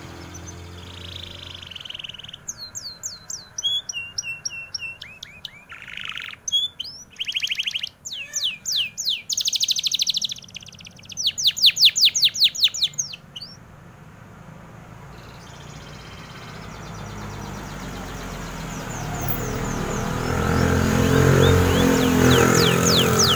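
Domestic canary singing vigorously: rapid trills and runs of quick repeated sweeping notes, loudest from about two to fourteen seconds in, then fainter. A low motor rumble swells up near the end.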